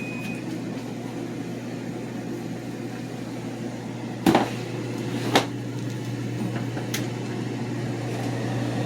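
Steady low mechanical hum of a running kitchen appliance, with three short sharp knocks about four, five and seven seconds in.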